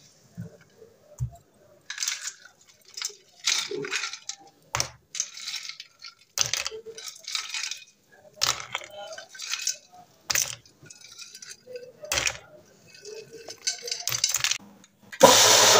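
Ice cubes dropped one by one into a blender jar of milk, cream and strawberries: more than a dozen separate clinks and knocks with short gaps between. Near the end a loud steady sound cuts in, the blender motor starting.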